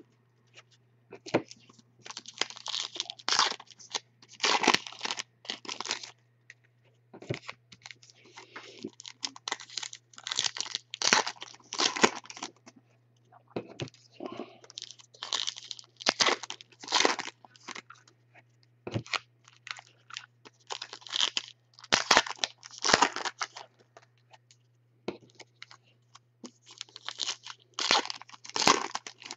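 Trading cards being handled and sorted: irregular short papery swishes and slides as cards are slid off a stack and dealt onto piles, over a faint steady low hum.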